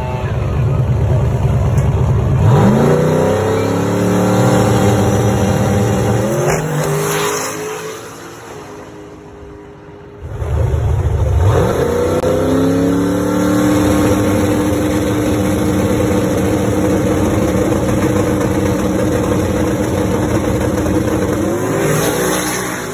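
Two full-throttle drag launches of a turbocharged LS V8 drag car. In each, the engine note climbs steeply as it accelerates hard down the strip. The first run fades into the distance before the second launch begins about ten seconds in.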